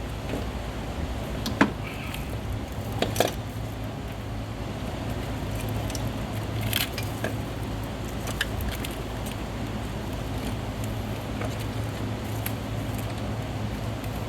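Scattered metallic clinks and knocks of tools and parts being handled in a car's engine bay, over a steady low hum. The sharpest knocks come about a second and a half and three seconds in.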